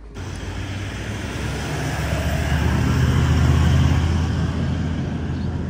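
Engine noise with a steady low hum, growing louder to a peak about halfway through, then easing off.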